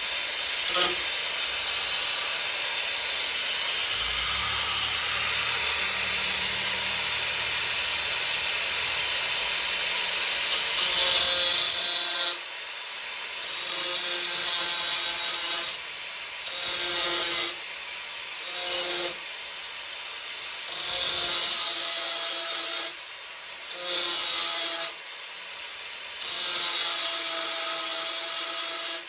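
Power tool working on metal or body panels, running steadily for a while and then switched on and off in about seven short bursts of one to two seconds each.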